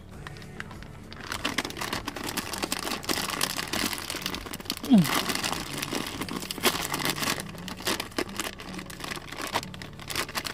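Plastic popcorn snack bag crinkling and rustling as it is handled, a dense run of small irregular crackles. A short falling squeak about five seconds in is the loudest moment.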